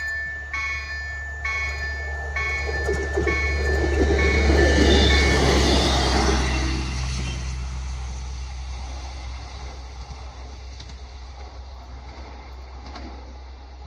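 Level-crossing warning bell chiming about once a second. An electric passenger train then passes over the crossing, loudest about five seconds in, its rolling rail noise fading away over the following seconds.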